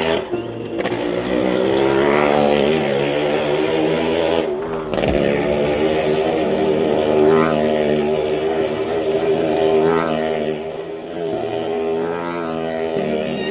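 Motorcycle engine running hard as the bike circles the wooden wall of a well of death, its pitch rising and falling over and over.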